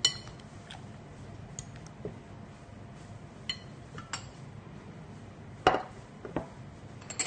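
Glass mixing bowl and ceramic plate clinking and knocking on a countertop as they are handled. A ringing clink comes at the start, then a few light taps, and the loudest knocks come about six seconds in as the plate is set down.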